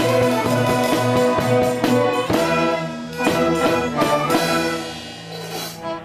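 Youth orchestra of violins, cellos and double basses playing held chords with regular accented beats. The playing thins out and grows quieter about five seconds in.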